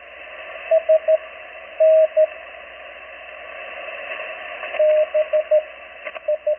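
Morse code (CW) from an amateur radio receiver, played through an MFJ-281 ClearTone speaker set in a wooden box. It comes as keyed beeps of one steady pitch, in short groups of dits and dahs, over a steady hiss of band noise.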